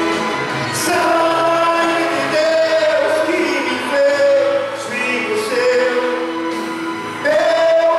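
A man singing a gospel hymn into a microphone, in long held notes that move from one pitch to the next.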